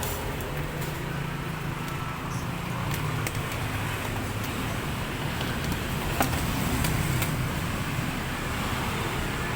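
Steady low rumble of passing motor traffic, with a few faint clicks.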